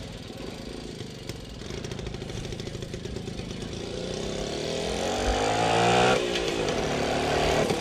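Small vintage motorcycle engine running as the bike is ridden across grass. It grows louder and higher as the bike comes closer, then the pitch falls sharply about six seconds in as it passes close by.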